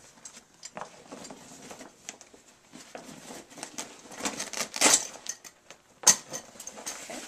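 Handling noise from a softbox being assembled: its support rods slid into the speed ring and fabric pockets, with scattered clicks, taps and scraping. Two sharper knocks about five and six seconds in are the loudest.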